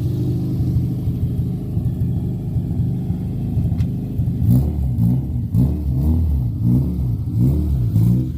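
Car engine running steadily under way. About halfway through, its pitch starts climbing and dropping back over and over, about twice a second, as the engine surges and stumbles. This is the hiccup around 3,000 rpm that new coil packs and spark plugs have not cured.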